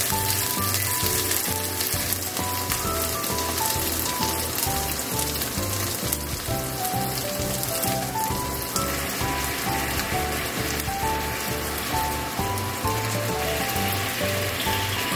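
Chicken tenderloin pieces sizzling in a frying pan, the sizzle growing brighter about nine seconds in as soy sauce is spooned onto the hot meat. Background music with a simple melody and a steady bass beat plays over it.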